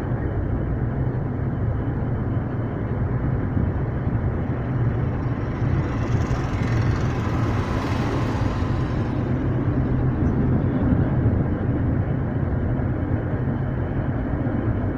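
Tram running along a street track, heard from inside at the front: a steady low hum with rolling rumble, and a hiss that swells and fades about six to nine seconds in.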